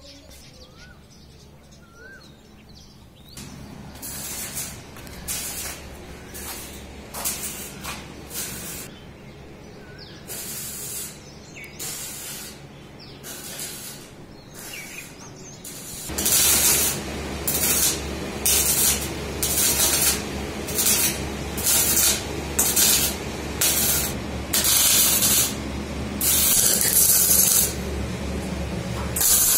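Electric arc welding on steel: the arc crackles and hisses in short bursts of under a second, one after another, faint at first and much louder from about halfway.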